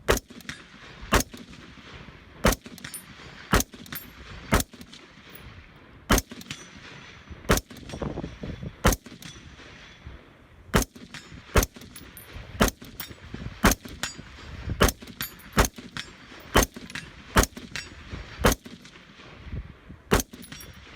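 Colt AR-15 rifle firing .223 rounds semi-automatically in a steady string of sharp shots, about one a second, with short pauses between some of them.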